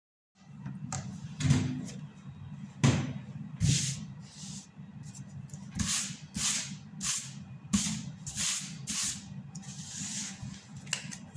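A hand brushing and sweeping across a sheet of drawing paper in a series of short swishes, with a couple of knocks from handling near the start and a low steady hum underneath.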